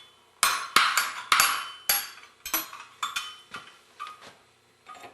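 Steel wrenches clinking and clattering against each other as a 7/8-inch wrench is picked out of the set: a quick run of sharp metal clinks, loudest in the first two seconds, then sparser and fainter.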